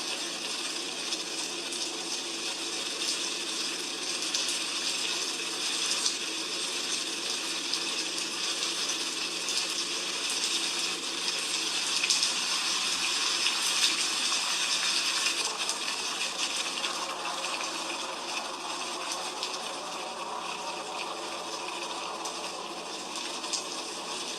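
Heavy rain falling steadily: an even hiss with many small drop ticks, swelling a little toward the middle.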